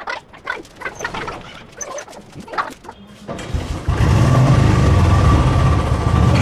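Royal Enfield Classic 350 UCE's single-cylinder engine being started: it is cranked about three seconds in, catches within a second, then settles into a loud, steady idle.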